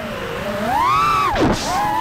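FPV quadcopter's brushless motors and propellers whining, their pitch rising and falling with the throttle. The pitch dips, climbs to a peak about a second in, then drops sharply and comes straight back up near the end, as the throttle is chopped and punched.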